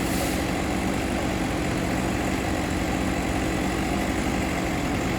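An engine idling steadily, with an even hum and no change in speed.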